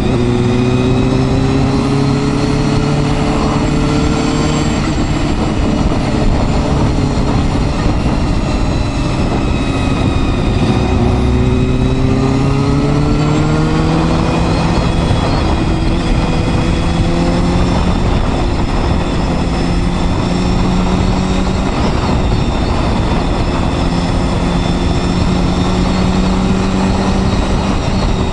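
Honda Hornet 250's four-cylinder engine running under way, its note slowly rising and falling in the first half, then holding steady, over a constant rushing noise.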